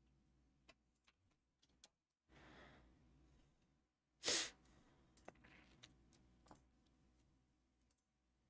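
Quiet room with a few faint clicks from a computer mouse as the document is scrolled, a soft breath out about two seconds in, and a short, louder sharp breath or sniff a little after four seconds.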